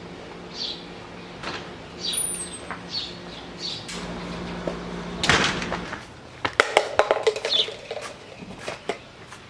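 Small birds chirping over and over, short high calls about every half second. About five seconds in comes a brief rushing noise, then a quick series of sharp clicks and knocks.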